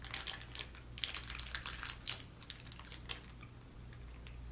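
Crisp, irregular crackling and crunching of an almond baklava and its thin plastic tray being handled and bitten, busiest in the first two seconds and thinning out after.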